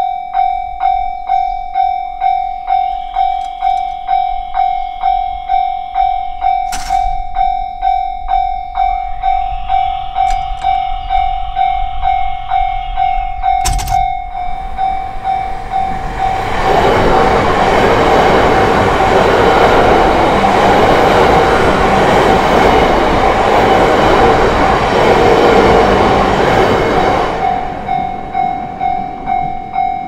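Japanese level-crossing alarm bell ringing in a rapid, steady electronic ding-ding. About halfway through, a train passes over the crossing: a loud rush of wheel and rail noise that drowns out the bell for about ten seconds, then fades while the bell keeps ringing.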